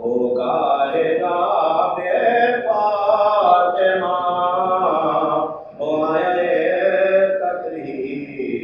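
A man's voice chanting a slow, melodic Shia mourning recitation in long held, wavering notes, with a brief pause for breath about five and a half seconds in.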